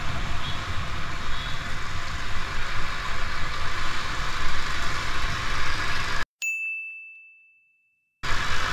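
Motorcycle running along a street, with a steady engine rumble and wind and road noise. About six seconds in the sound cuts out, and a single bright ding rings and fades away into silence.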